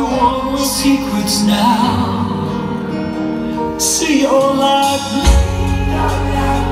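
Live pop ballad heard from the audience in a theatre: a singer holds and slides through long vocal notes over sustained keyboard chords, and a low bass pulse comes in about five seconds in.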